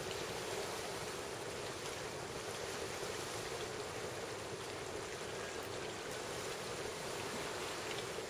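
Steady rushing wash of distant ocean surf, an even hiss with no single breakers standing out.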